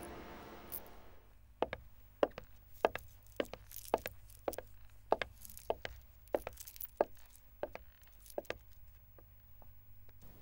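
Background music fading out, then slow, even footsteps on a hard floor, a bit under two steps a second.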